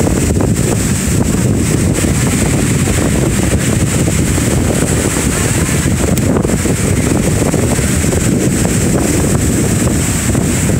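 Strong wind buffeting the phone's microphone, a steady, loud, rumbling noise.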